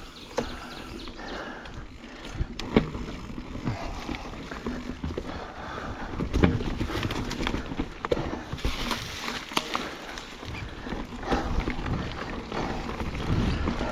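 Mountain bike being ridden over rough single track: tyres on dirt and rock, with irregular knocks and rattles from the bike. A rider breathes hard on the climb.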